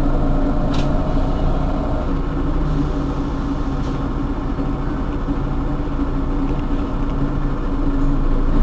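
Mercedes-Benz Citaro G C2 bus's diesel engine idling steadily at a standstill, a low, even drone. A higher hum in it drops out about two seconds in.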